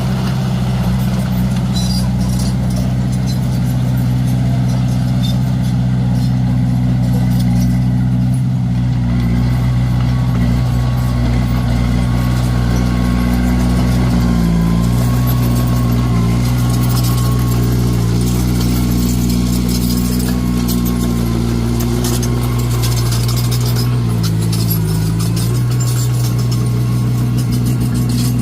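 Komatsu D21A bulldozer's diesel engine running steadily, its pitch dipping briefly twice: about halfway through and again near the end.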